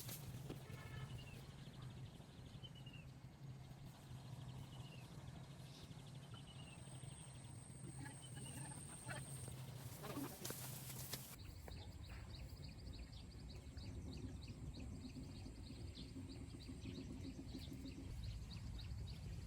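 Faint outdoor ambience with short animal chirps repeating every second or two over a low steady hum. About eleven seconds in, the sound changes abruptly to a rapid ticking chatter.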